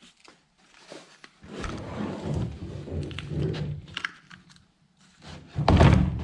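BMW N52 cylinder head being handled and turned over on a bench: irregular scraping and clattering with a few sharp metal clicks, then a loud heavy thud near the end as it is set down.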